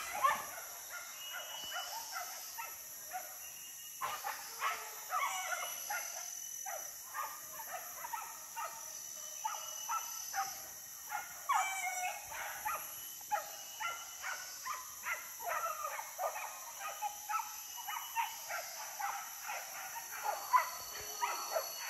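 Hunting dogs barking over and over, short calls following each other several times a second.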